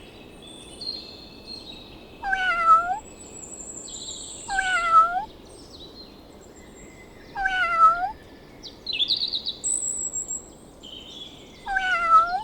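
Domestic cat meowing four times, short meows a few seconds apart, with small birds chirping faintly in the background.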